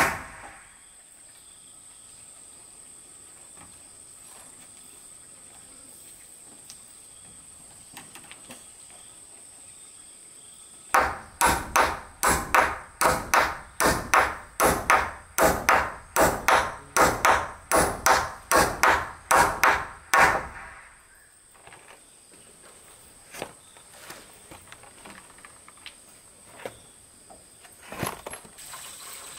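Claw hammer driving a nail into a wooden roof-frame beam: a quick even run of about two dozen sharp strikes, a little over two a second, starting about eleven seconds in and stopping about ten seconds later.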